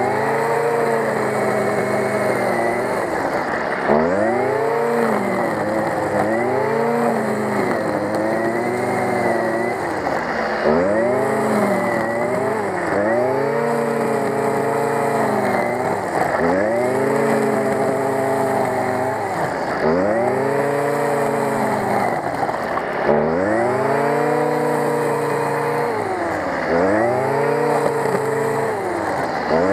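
Stihl FS 55 brush cutter's two-stroke engine running at high revs while cutting tall grass and weeds. Its pitch swells up and sags back about every three seconds as the cutting head sweeps through the grass.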